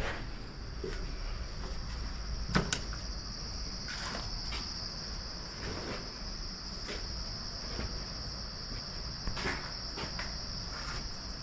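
Crickets chirping in a steady high-pitched trill, with a few scattered knocks and scuffs over it, the loudest about two and a half seconds in.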